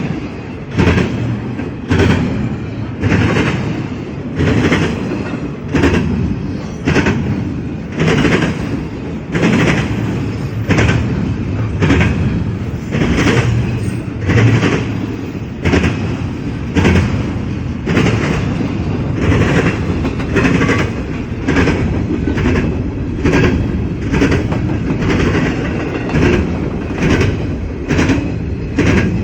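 Long CSX freight train's cars rolling past with a steady rumble. The wheels click over rail joints in a regular clickety-clack, about once a second.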